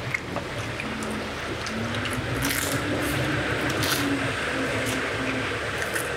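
Biting into and chewing crispy fried chicken: crackling crunches, the sharpest about two and a half seconds and four seconds in, with wet chewing between them.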